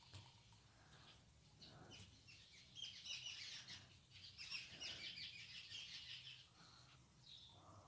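Faint bird chirping in quick twittering runs, loudest from about three to six and a half seconds in, over a low background hum.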